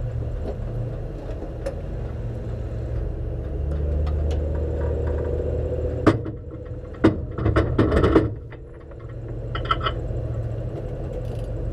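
Race car engine idling while the car sits stopped, heard from inside the cabin, with a few sharp knocks and rattles about six to eight seconds in.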